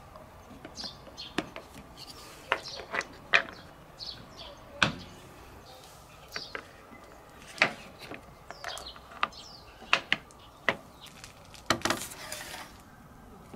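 Plastic and wooden marble-run track pieces and plastic block supports being handled and set down on a deck: a series of irregular sharp clicks and clacks, with a short rattling clatter near the end.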